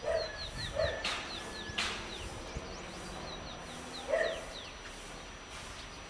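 A dog barking three times, twice in quick succession at the start and once more about four seconds in, while a bird repeats a run of short, high, falling chirps.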